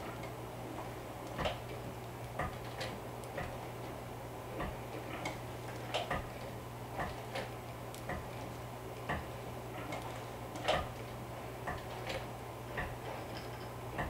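Industrial straight-stitch sewing machine turned slowly by hand at its handwheel, giving a soft click with each stitch, irregularly about one or two a second, over a steady low hum.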